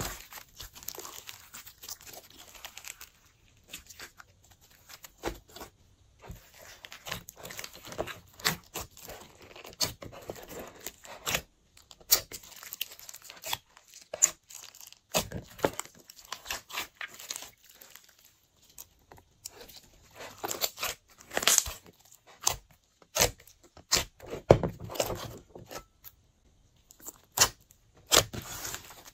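Glossy slime being squished and stretched by hand, giving irregular sticky clicks and crackling pops.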